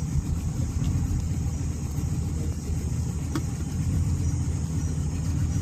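A boat's outboard motor running steadily with a low rumble.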